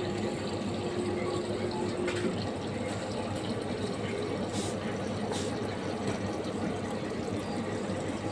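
Water vending machine dispensing drinking water into a large plastic bottle: a steady filling sound as the paid amount runs down toward the end. A steady hum under it stops about two seconds in.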